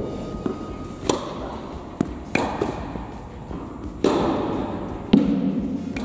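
Tennis balls struck with rackets and bouncing on the court during a slice drill: several sharp knocks a second or so apart, each with a short echo from the indoor hall.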